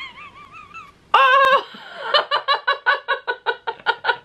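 A high, wavering whimper, then a woman's sharp cry of "Oh!" about a second in as the peel-off mask tugs at her nose. A run of rapid laughter follows, about five bursts a second.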